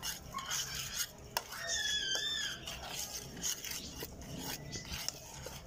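A metal spoon stirs a dry mix of milk powder and baking powder in a plate, scraping and clinking lightly against it. A brief high wavering tone sounds about two seconds in.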